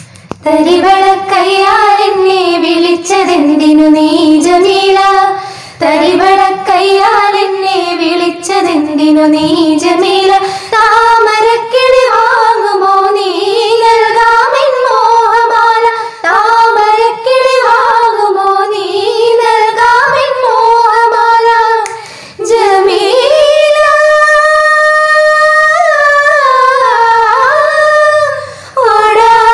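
A group of women singing a song together in unison, one melody line with a long held note about three-quarters of the way through.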